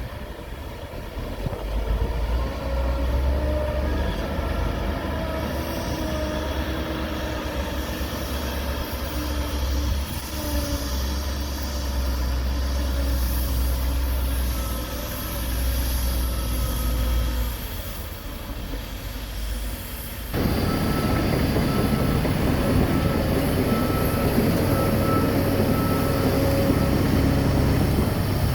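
Heavy diesel machinery engines running: a steady low rumble that switches abruptly, about twenty seconds in, to a louder, harsher running sound with a faint whine.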